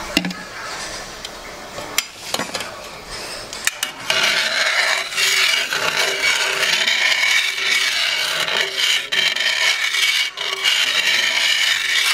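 Cream and butter being stirred in a hot skillet: a few clicks of a utensil against the pan, then from about four seconds in steady scraping and stirring across the pan bottom.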